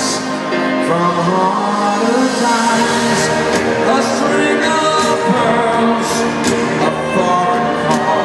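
Live piano ballad with a male lead vocal and band, recorded from the audience in an arena through the concert PA.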